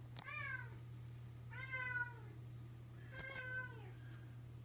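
A pet cat meowing three times, each call falling in pitch, over a steady low hum.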